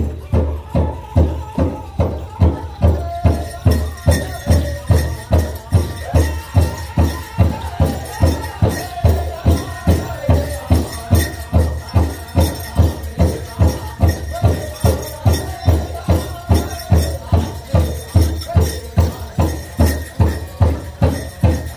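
Powwow drum group singing a duck-and-dive song with a big drum struck in a steady beat, about two strokes a second, the voices sung high over the drum.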